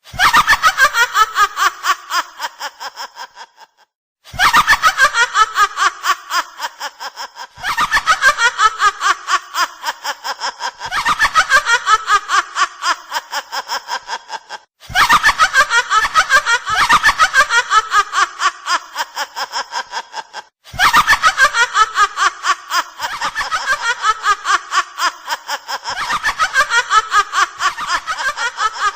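A woman's high witch-like cackling laughter, a rapid run of 'ha-ha-ha' pulses that falls in pitch and fades away over a few seconds, repeated about nine times.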